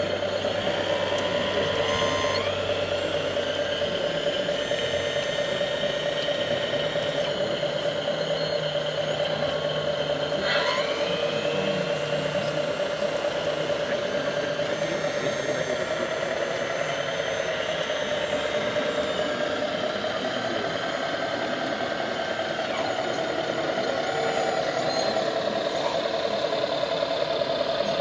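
Radio-controlled model hydraulic excavator running: a steady whine from its electric motor and hydraulic pump as it drives on its tracks, with a brief rising sweep about ten seconds in.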